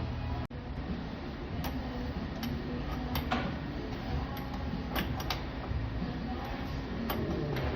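Scattered light metallic clicks and knocks from work on a commercial kitchen door's hinge and bolts, about eight in all at uneven spacing, over a steady background hum.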